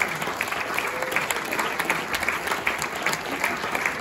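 Theatre audience applauding, a dense, steady patter of many hands clapping.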